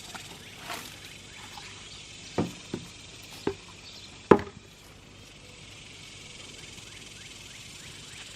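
A few scattered knocks and thumps from digging potatoes out of soil by hand and handling the tubers, the loudest about four seconds in.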